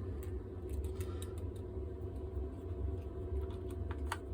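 Steady low background hum with faint steady tones, and a few faint, light clicks scattered through it.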